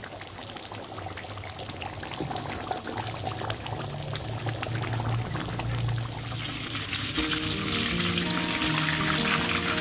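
Cooking oil crackling in a pan, turning into a dense, steady sizzle about six and a half seconds in, as in ground spice paste frying. Background music with held notes comes in about seven seconds in.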